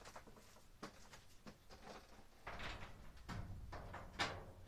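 Quiet handling noise: scattered light knocks and clicks with short bouts of rustling as objects are picked up and moved about.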